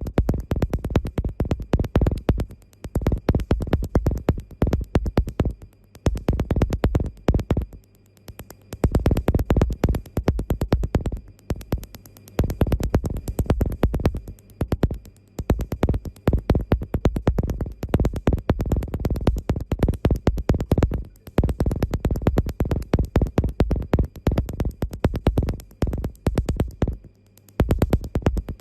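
Tattoo-removal laser firing rapid trains of sharp snapping pulses against the skin, many pulses a second, in passes broken by short pauses, over a faint steady machine hum.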